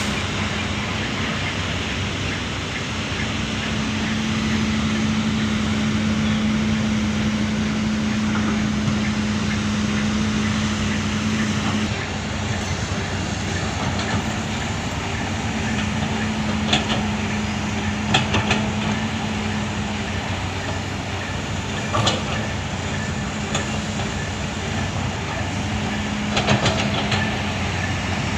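Diesel engine of a working Hitachi Zaxis 200 excavator running steadily, its hum swelling and easing with the load, with a few sharp clanks and knocks in the second half.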